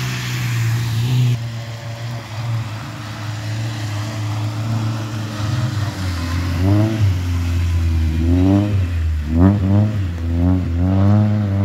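Rally car engine revving hard as the car comes through the bend and passes close by: the pitch climbs and drops back in several quick sweeps, as it does with each gear change. A steady low engine drone runs underneath.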